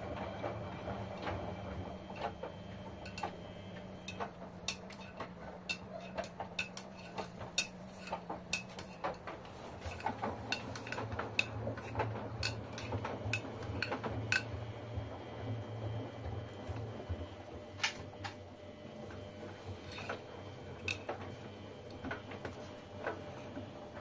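LG direct-drive front-loading washing machines running a wash, drums turning the laundry: a steady low hum that shifts lower about nine seconds in, with many irregular light clicks and clinks.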